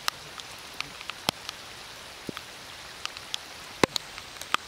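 Raindrops tapping on a Garmin VIRB 360 action camera: sharp, irregular ticks over a steady hiss of rain.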